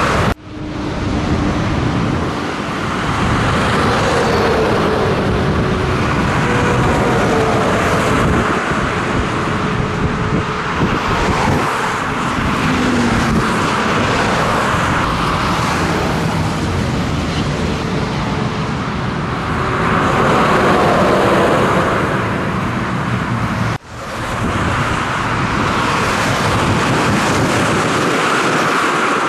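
Motorway traffic passing at speed: a steady rush of tyres on asphalt with the drone of car, van and truck engines, whose pitch drifts as each vehicle goes by. The sound breaks off abruptly twice, just after the start and about four-fifths of the way through, at cuts in the recording.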